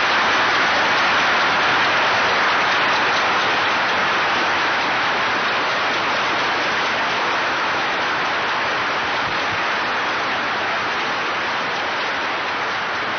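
Large audience applauding, a dense and steady clapping that fades slightly and then cuts off suddenly at the end.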